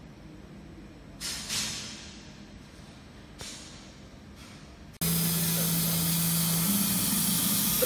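Fiber laser cutting machine cutting 8 mm steel plate: a loud, steady hiss of assist gas jetting from the cutting nozzle, over a low machine hum that steps up in pitch and later drops back. It starts abruptly about five seconds in, after a quieter stretch of workshop background with a few short hisses.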